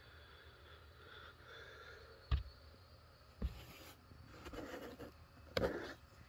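Scratching and rustling on cardboard and towelling, with three sharp knocks about two, three and a half, and five and a half seconds in: a kitten moving about in a cardboard box.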